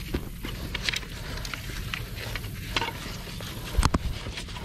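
Small bull shark flopping in a landing net on dry ground: crackling rustle of dry leaves and twigs with scattered clicks, and a heavier thump about four seconds in.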